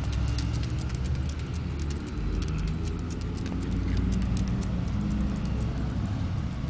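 A dachshund's claws clicking on concrete pavement as it walks: a quick, irregular patter of small ticks over a steady low hum.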